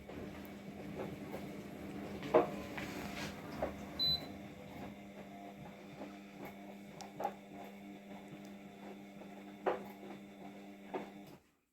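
Amica dishwasher running with a steady motor hum, broken by several sharp knocks and a single short high beep about four seconds in; the sound cuts off abruptly near the end.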